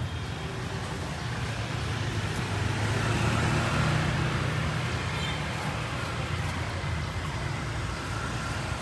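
Street traffic rumbling steadily, with a vehicle passing and the noise swelling about three to four seconds in.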